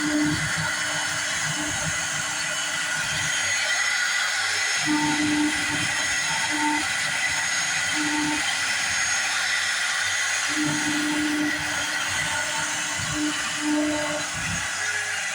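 CNC wood router running, with a steady high-pitched whine and hiss. A lower hum with some rumble comes and goes every second or two.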